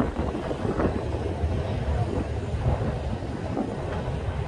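Wind buffeting a smartphone microphone over the steady running rumble of a heritage double-decker tram moving along its track.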